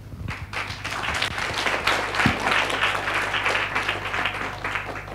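Audience applauding: the clapping builds over the first two seconds and dies away near the end.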